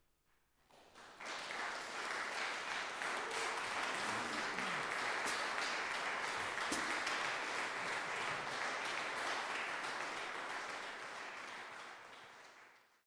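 Audience applauding: the clapping starts about a second in, holds steady, and fades out near the end.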